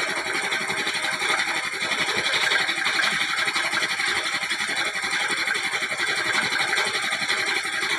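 A small machine or power tool running with a fast, steady mechanical rattle that does not let up.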